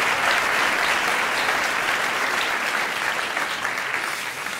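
Large theatre audience applauding, a dense patter of many hands clapping that starts to fade near the end.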